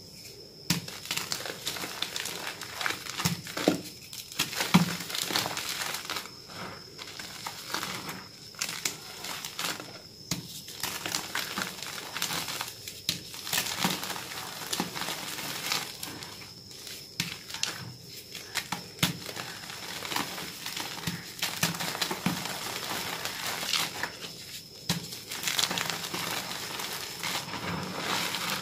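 Reformed gym chalk blocks crushed and crumbled by hand in loose chalk powder: dense crunching and crackling as handfuls are squeezed, with brief pauses between squeezes.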